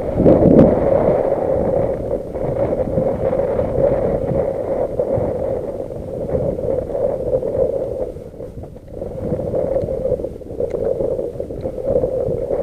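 Wind buffeting the microphone over choppy water lapping against a kayak, a gusty, uneven rush that eases briefly about eight seconds in.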